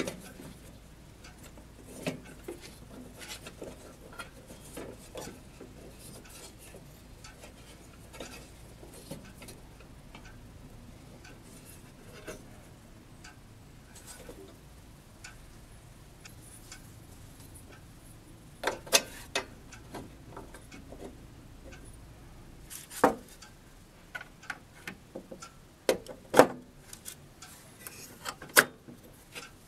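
Small brass fittings clicking and tapping against metal as they are handled and fitted onto model steam boilers by hand. The clicks are scattered, with more and louder ones in the second half.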